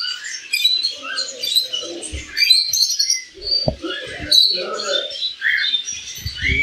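Many small cage birds chirping at once, a steady overlapping chatter of short, high calls.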